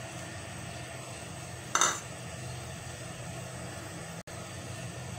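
Steady low hum, with one brief scrape of a utensil against the aluminium cooking pot about two seconds in.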